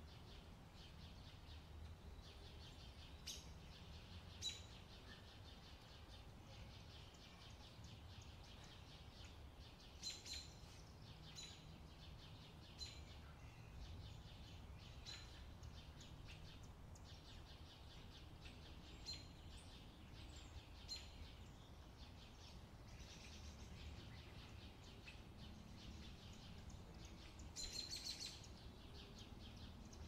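Faint short chirps of small birds, coming in scattered calls and clusters, loudest a few seconds in and near the end, over a steady low rumble.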